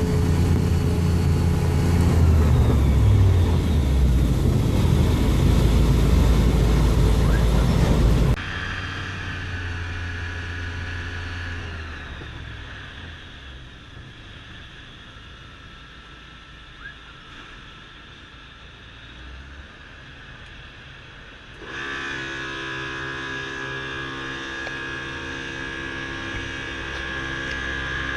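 Rotax 912 iS Sport four-cylinder engine and propeller of an F6 Hydran seaplane running across the water, at first loud with rushing water and wind. About eight seconds in it cuts to a quieter, steady engine tone heard inside the cabin, which fades lower and then comes back louder about three-quarters of the way through.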